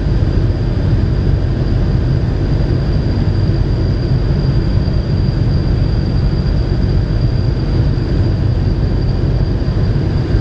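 Cessna light aircraft's engine and propeller droning steadily, heard inside the cabin, with a thin steady high whine over the drone.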